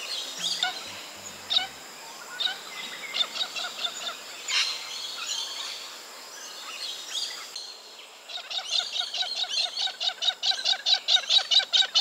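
Galahs (pink-and-grey cockatoos) calling: scattered short calls and chirps at first, then from about eight seconds in a fast, steady run of short repeated calls, roughly five a second.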